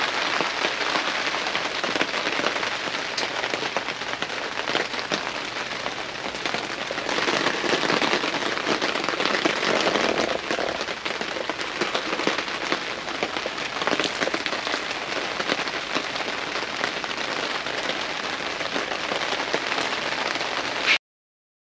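Steady rain falling, a continuous hiss with scattered drop hits. It cuts off suddenly near the end.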